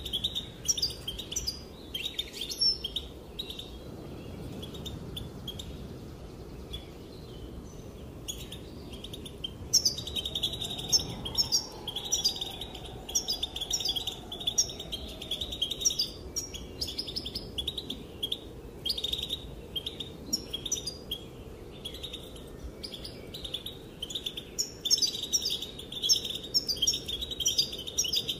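European goldfinch twittering: rapid, high chirps and trills in quick runs. The twittering thins out for several seconds a few seconds in, then picks up densely again.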